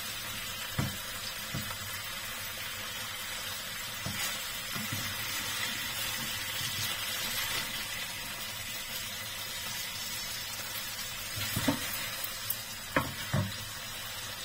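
Salmon belly pieces sizzling steadily in the fat they have rendered out in a frying pan, a sign they are cooking through. A slotted spatula knocks and scrapes against the pan a few times, the loudest knocks near the end.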